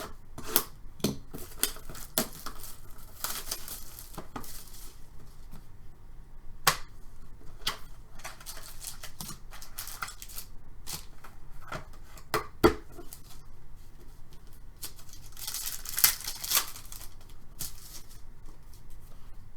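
Trading card packs being torn open and the cards handled, with rustling wrapper tears and sharp clicks and snaps of card and wrapper.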